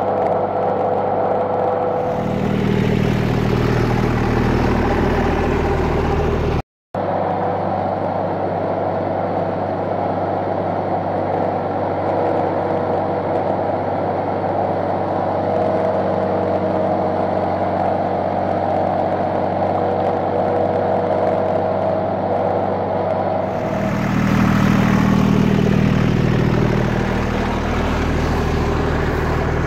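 Tractor engine running steadily while driving a PZ drum mower. There is a brief gap in the sound about seven seconds in, and a louder, deeper stretch near the end.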